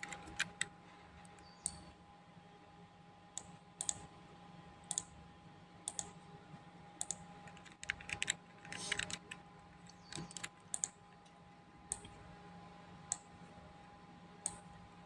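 Computer mouse clicking: sharp single clicks about once a second, with a quicker run of clicks around the middle, over a faint steady electrical hum.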